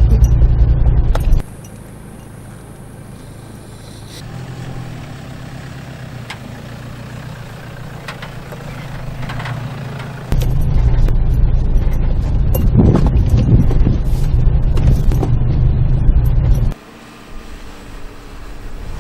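Off-road 4x4 vehicle's engine running on a rocky trail, in clips joined with sudden cuts. It is loud at first, much quieter from about a second and a half in, and loud again from about ten seconds in until near the end.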